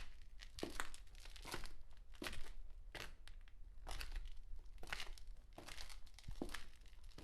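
Footsteps walking at a steady pace, a little more than one step a second, each step a short scuffing impact with lighter scrapes between.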